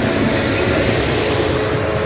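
Rail vehicles of a track maintenance gang running by: a steady, loud rush of noise with faint held tones near the end.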